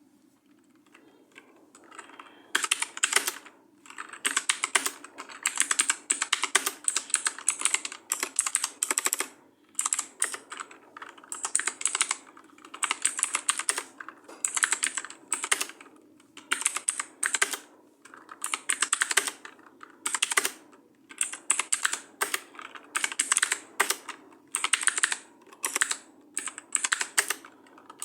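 Fast typing on a computer keyboard: rapid runs of key clicks in bursts of a second or two, with brief pauses between words or phrases, beginning about two seconds in. A steady low hum lies underneath.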